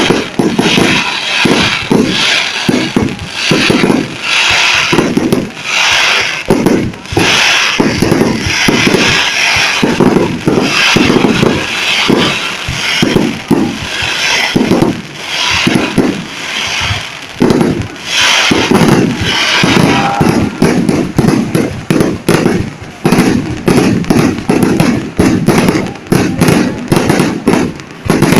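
Fireworks display: a continuous run of loud bangs from bursting shells, closely spaced throughout and turning into a faster crackling barrage in the last few seconds.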